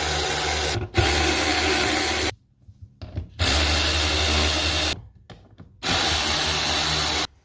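A cordless power driver or ratchet spinning out small 7 mm dash bolts, run in about four bursts of a second and a half each with short pauses between them.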